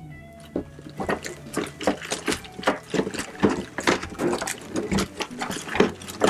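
Clear plastic bag crinkling and crackling in irregular bursts as hands grip and shift the bagged RC car body.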